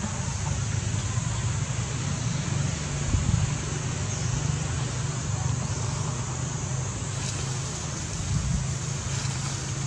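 An engine running steadily at a low, even hum under a constant hiss.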